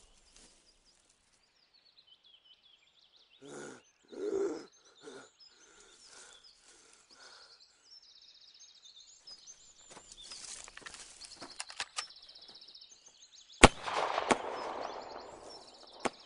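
Birds chirping over a quiet field, with two short low sounds about four seconds in. Near the end comes a single sharp crack, the loudest sound, followed by a couple of seconds of noise and another click.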